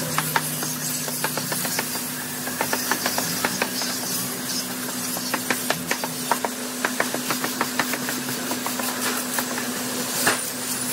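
Corded electric angle grinder running steadily while it sands the planks of a wooden cable reel, making a steady hum with a hiss from the abrasion. Many sharp clicks and knocks are scattered through it.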